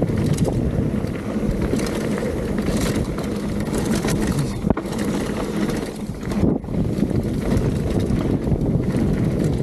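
Wind buffeting the microphone and tyres rumbling on a dirt trail as a mountain bike descends at speed, with scattered clicks and rattles from the bike over bumps.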